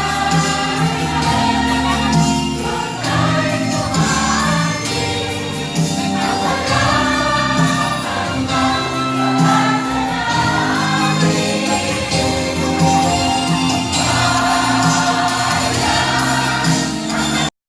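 Choir singing a Tagalog Christmas carol with instrumental accompaniment and a steady bass line.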